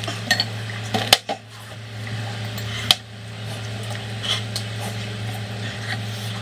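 Chopsticks and spoons knocking against ceramic bowls and mugs while people eat, with several sharp clicks, the clearest about one second and three seconds in, over a steady low hum.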